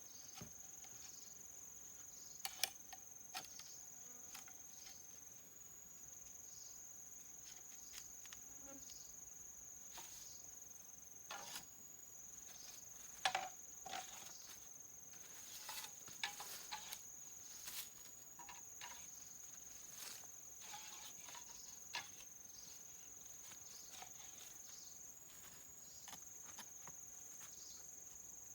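Insects singing in a steady, high-pitched drone, with scattered light clicks and taps.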